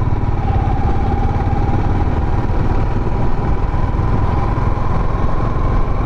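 Motorcycle engine running at a steady cruise while riding, with wind rushing over the microphone. A thin whine runs through it, dipping slightly in pitch and then climbing back.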